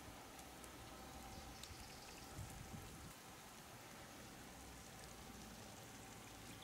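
Near silence: faint scattered drips and ticks of water over a low steady hiss, with two soft low thumps about two and a half seconds in.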